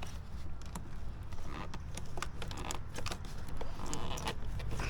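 Irregular small clicks, taps and rattles of hands wrestling a stubborn part loose in a car's engine bay, around the throttle body and its hoses.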